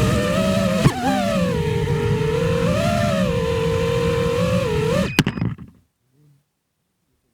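FPV quadcopter's brushless motors and propellers whining, the pitch rising and falling with the throttle, with a sharp knock about a second in. A little after five seconds there is a sharp click and the whine dies away within half a second as the motors stop.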